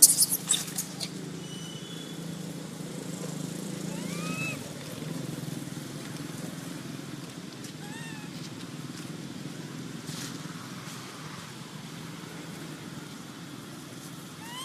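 A few sharp clicks in the first second, then a macaque giving short, arched squeaking calls a few times, about 4 and 8 seconds in and again at the end, over a steady low hum.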